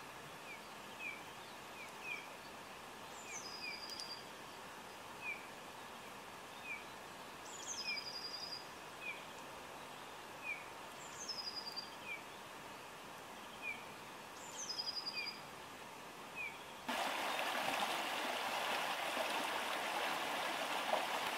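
Wild birds in woodland: short chirps every second or so, and a brief falling song phrase repeated about every four seconds. About three quarters of the way through it cuts to a small stream running over rocks, a steady rush that covers the birds.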